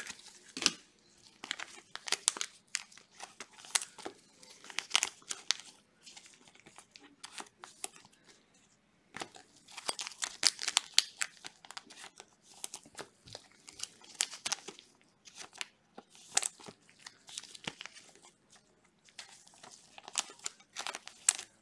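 Trading cards and thin plastic card sleeves and holders crinkling and clicking in gloved hands, in short irregular bursts, with a quieter stretch about six to nine seconds in.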